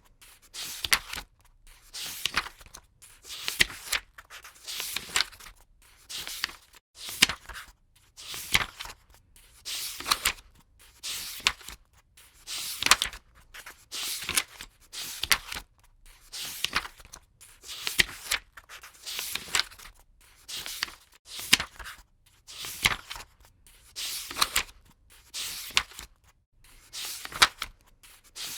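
Paper book pages being turned one after another, each turn a short papery swish, at about one to two a second.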